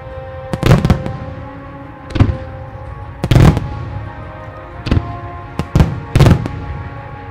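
Fireworks shells bursting: about eight sharp bangs at uneven intervals, the loudest about halfway through, some coming in quick pairs. Music with long held notes plays underneath.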